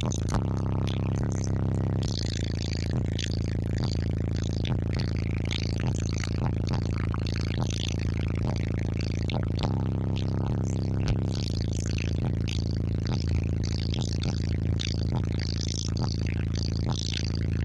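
Bass-heavy music played loud through a car's subwoofer system of two Resilient Sounds Team 15-inch subwoofers on a Taramps Bass 15k amplifier: deep, sustained bass notes under a quick percussion beat.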